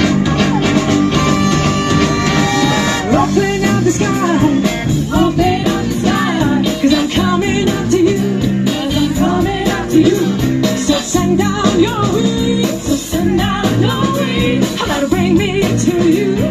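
An eleven-piece soul band playing live, with guitar and a driving dance beat. Held band notes open, and singing comes in about three seconds in and carries on over the band.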